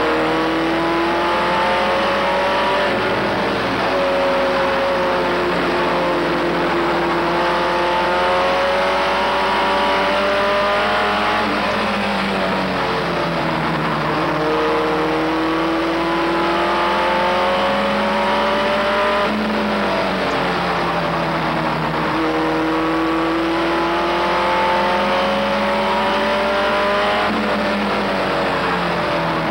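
Race truck engine heard from inside the cab at racing speed, its pitch climbing for several seconds and then dropping sharply, about every seven to eight seconds: accelerating down the straights and lifting for the turns.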